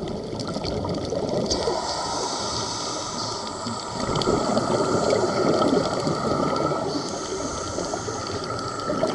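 Rushing water and bubbles heard from underwater, with two stretches of high hiss, one early and one near the end, and a louder surge of rushing from about four seconds in.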